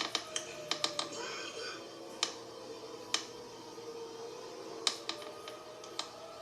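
Outdoor tornado warning siren wailing in the distance: its tone slides down in pitch and then back up, with a fainter higher tone following it. Sharp clicks are scattered through.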